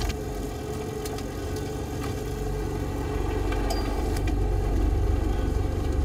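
Fishing boat's engine running steadily with a low rumble, a few faint clicks over it, growing a little louder about three seconds in, as the net is hauled aboard.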